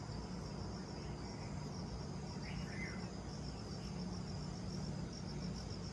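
Crickets chirping: a steady, high-pitched train of fast, even pulses, over a low steady hum.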